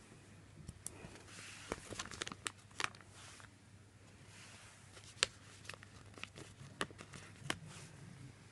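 Quiet paper handling: stickers being peeled from their backing sheets and pressed onto a planner page, heard as scattered light clicks and a few short soft rustles.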